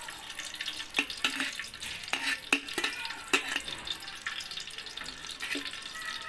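Melted ghee poured in a thin stream into a metal cooking pot, with a steady hiss underneath and several sharp clicks and taps, most between about one and three and a half seconds in.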